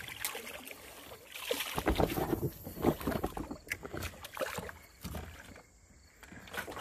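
A hooked bass splashing at the water's surface beside the boat as it is reeled in, in several separate splashes.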